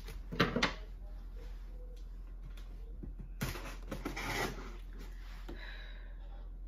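Scissors and hands working at a taped cardboard box: a few sharp knocks within the first second, then a stretch of scraping and rustling of cardboard a little past the middle.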